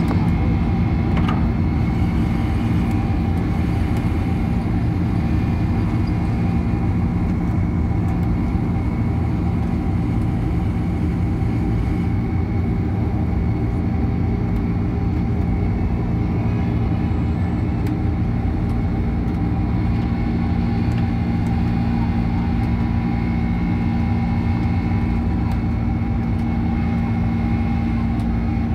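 Boeing 767-300ER jet engines running at high power during the climb just after liftoff, heard from inside the cabin: a steady rumble with several steady tones over it.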